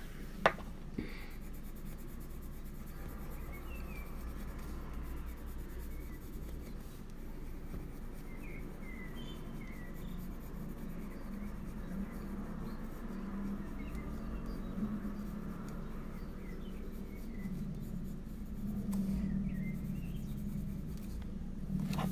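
Polychromos colored pencil shading on coloring-book paper: a soft, continuous scratching and rubbing of the lead. One sharp click comes about half a second in.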